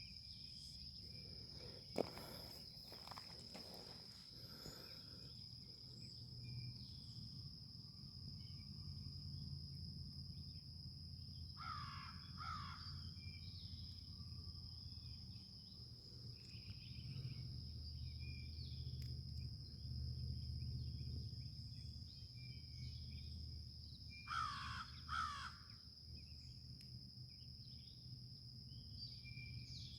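A bird calls twice in short pairs, about twelve seconds in and again near twenty-five seconds, over a steady high-pitched whine and a low rumble. A single sharp click comes about two seconds in.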